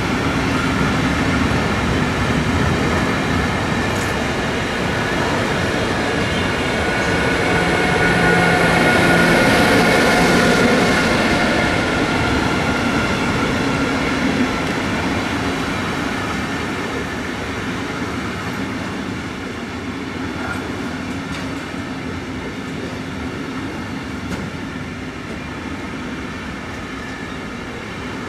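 An electric-hauled freight train passing: wheel and rail noise with a steady whine, loudest about ten seconds in. After that, the rumble of the wagons fades slowly.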